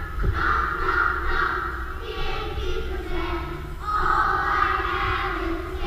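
A chorus of preschool children singing a Christmas song together over instrumental accompaniment, in phrases of held notes.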